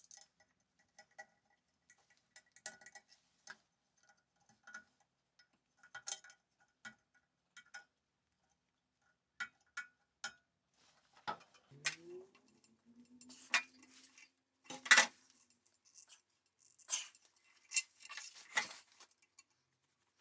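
Scattered metallic clinks, taps and knocks of small hard parts and tools being handled. They grow louder and more frequent in the second half, with a brief rising tone about two-thirds of the way through.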